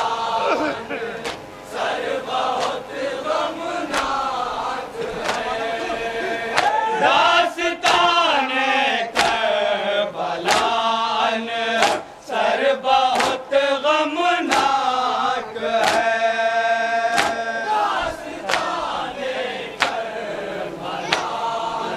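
Men chanting a noha, a Shia mourning lament, over a steady beat of palms striking chests (matam), about one and a half slaps a second.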